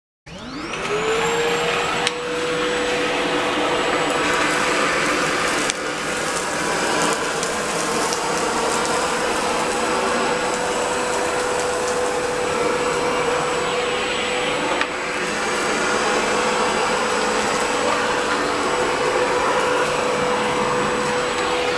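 Milwaukee M18 FUEL 3-in-1 cordless backpack vacuum switching on, its motor spinning up within about a second to a steady high whine over a loud rush of air. It then runs on steadily, with a couple of brief clicks and small dips in level.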